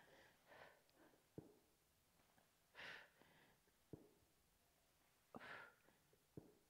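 A woman's faint exhalations from effort during leg raises: two short breaths out, about two and a half seconds apart, with a few faint clicks in between.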